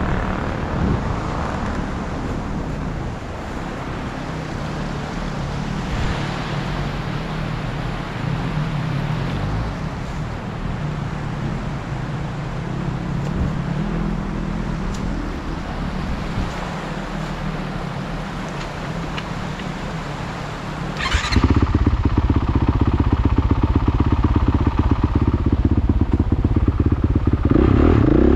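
Dirt bike engine running at low revs with an uneven beat, then opening up about three-quarters of the way through and running loud and steady as the bike moves off.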